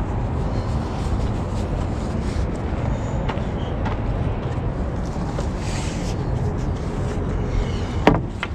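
Steady low rumble throughout, with faint knocks of handled lumber and one sharp knock about eight seconds in as a wooden dunnage beam is set down on the truck's frame.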